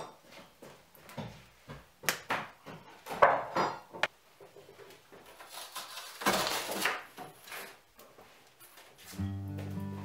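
Old cardboard sheeting being pulled up and scraped across a wooden plank floor, with footsteps and knocks on the boards; the longest scrape comes about six seconds in. Background music comes in near the end.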